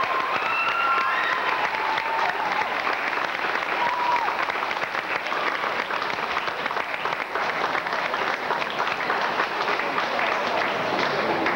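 A crowd applauding steadily, many hands clapping at once, with voices calling out over it, during a trophy celebration after a basketball final.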